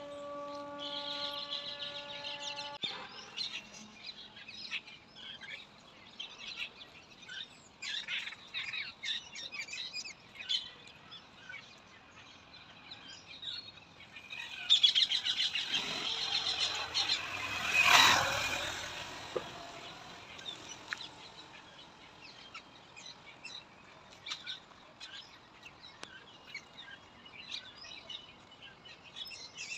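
Small birds chirping and calling in short, scattered notes. A steady pitched tone sounds for the first three seconds, and a rush of noise builds and fades a little past halfway, louder than the birds.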